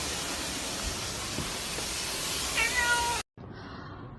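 A cat meows once, briefly, near the end, over a loud steady hiss; the sound then cuts off abruptly.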